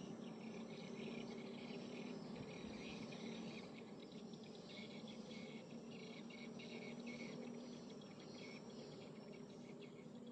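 Insects in the riverside vegetation chirping in a dense, rapidly pulsing high-pitched chorus, with a faint low steady hum underneath.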